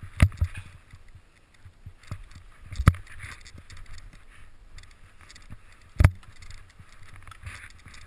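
Skis turning through deep powder snow: repeated swishes of snow spraying, with a few sharp knocks, the loudest near the start, about three seconds in and about six seconds in.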